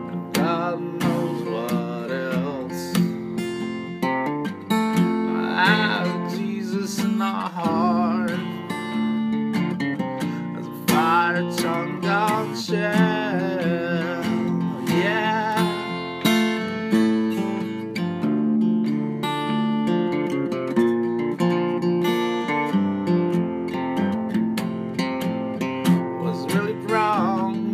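Acoustic guitar strummed through a four-chord progression, an instrumental passage between sung lines. A wavering, high melody line rises over the chords several times.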